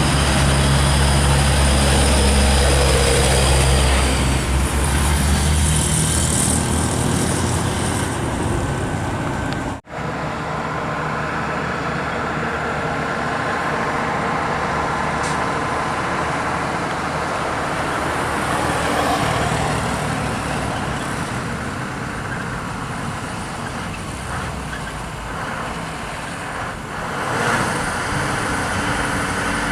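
Heavy diesel truck engine running loud and low, fading away over the first several seconds. After a brief dropout about ten seconds in, steady truck and road traffic noise.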